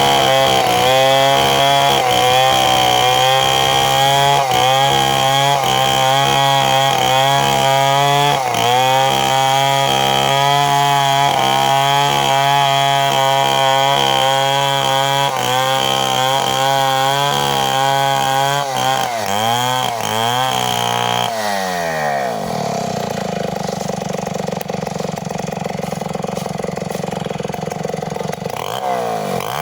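Two-stroke chainsaw running at high revs, its pitch sagging and recovering every second or so. About two-thirds of the way through the throttle is released and the revs fall to a steady idle, then it revs up again right at the end.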